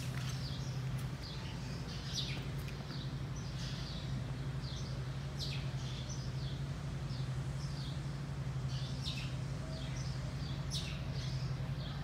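Small birds chirping, many short high calls scattered throughout, over a steady low hum.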